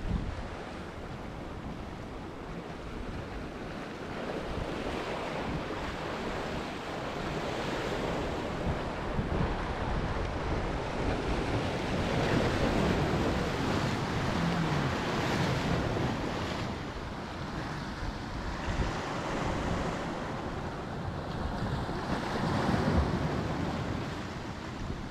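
Ocean surf washing and breaking against the boulders of a rock jetty, surging louder and easing off every few seconds, with wind buffeting the microphone.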